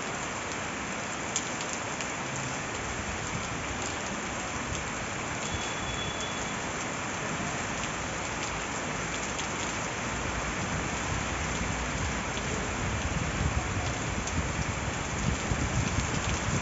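Heavy rain pouring down, a dense, steady hiss with scattered sharper ticks of drops striking nearby surfaces. Uneven low swells grow stronger in the last few seconds.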